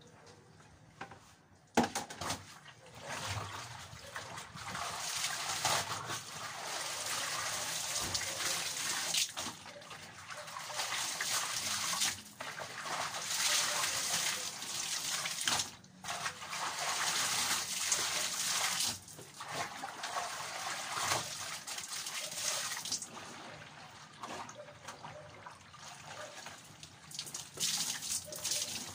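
Water running and splashing as clothes are hand-washed in a plastic basin, coming in stretches of a few seconds with short breaks, with a sharp knock about two seconds in.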